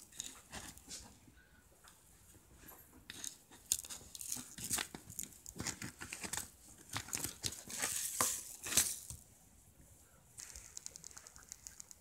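Slime packed with tiny beads being squeezed and kneaded by hand in a plastic tub: an irregular run of small clicks and crackles, thickest through the middle, with a quick string of fine ticks near the end.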